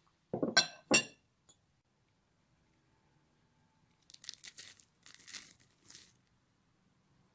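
Two sharp clinks with a short ring in the first second. From about 4 s, a crunchy rustling patter lasting about two seconds as chopped white pieces are tipped into a glass mixing bowl.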